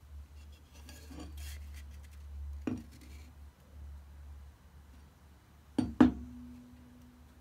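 A steel-headed hatchet on a hickory handle being picked up and handled, with a low rumble through the first half. There is one sharp knock a little before the three-second mark, then two close, louder knocks about six seconds in. The louder knock is followed by a short metallic ring.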